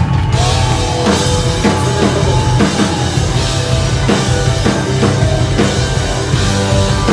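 Live rock band playing loudly: electric guitars over a steady drum-kit beat of about two hits a second.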